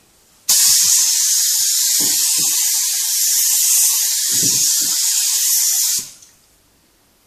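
Compressed-air spray gun hissing as it sprays activator over hydrographic printing film floating on water. The spray starts suddenly about half a second in and cuts off at about six seconds.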